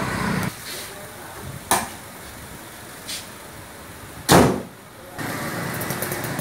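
A 1500 cc car engine idling, its sound dropping back about half a second in and returning near the end, broken by three sharp knocks, the loudest about four seconds in.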